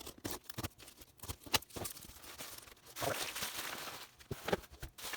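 Packaging being handled and pulled open: a run of crinkles, rustles and small clicks, with a longer stretch of rustling about three seconds in.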